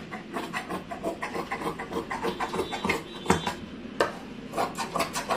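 Brocade cloth rustling and scraping as it is handled and smoothed on a cutting table. Irregular crackling runs through it, and two sharper clicks come about three and four seconds in.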